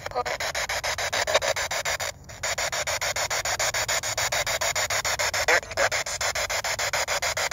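P-SB7 spirit box sweeping the FM radio band through its small speaker: choppy radio static that steps about ten times a second, with a brief dropout a little after two seconds in.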